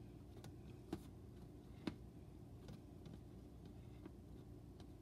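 Near silence with a few faint plastic clicks as the blade base is fitted and screwed onto a personal blender cup.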